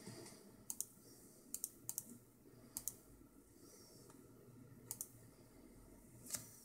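Light, sharp clicks of a computer keyboard or mouse at the desk: five quick pairs, like a press and release, then one louder single click near the end.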